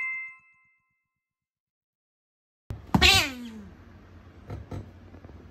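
Asian small-clawed otter giving one loud angry call, falling in pitch, about three seconds in, followed by two short, quieter sounds about a second later. Before it, a two-tone chime rings out and fades within the first half second, then there is dead silence.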